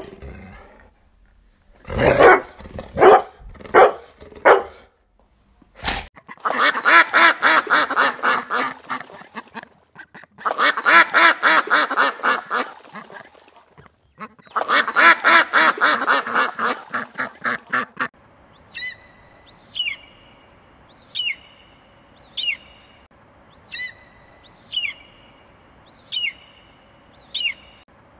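A dog barks a few times, then mallard ducks quack in three long, rapid runs. After that comes a bird's high whistled call, falling in pitch and repeated about once a second.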